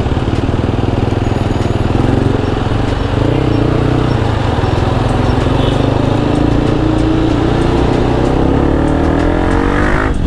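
Motorcycle engine running through its fitted exhaust in slow traffic, then revving up and rising in pitch as the bike accelerates near the end.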